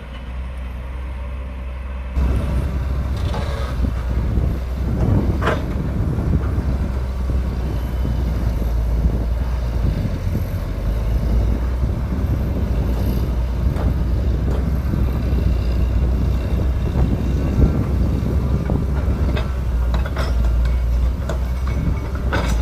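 Hydraulic excavator diesel engines running under load while digging soil, a steady low rumble that gets louder about two seconds in, with a few sharp metallic knocks.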